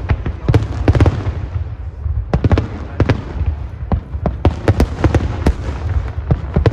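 Fireworks going off: many sharp bangs and crackles in quick, irregular succession over a steady low rumble.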